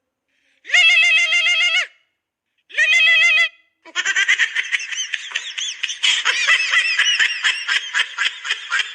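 A novelty 'funny' ringtone playing on a phone: three wavering, high-pitched calls about a second long with short gaps between them, then from about four seconds in a fast, busy stream of short squeaky sounds.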